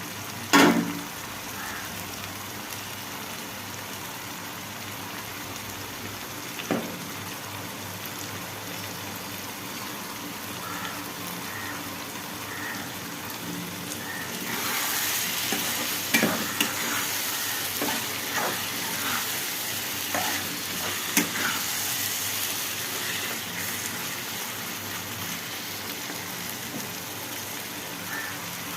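Marinated chicken frying in oil in a pan, sizzling steadily while it is stirred, with sharp knocks of the spoon against the pan. The sizzle grows louder about halfway through, where a run of spoon knocks comes close together.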